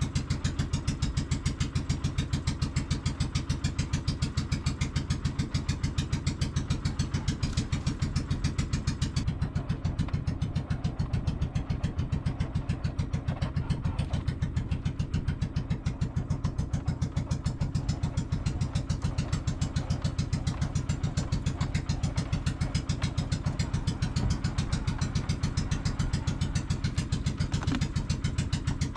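Outrigger fishing boat's engine running steadily under way, with a fast, even exhaust beat.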